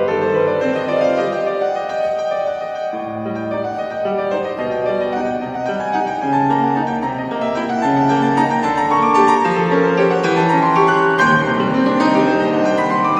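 Solo grand piano playing a classical piece, a melody moving over chords.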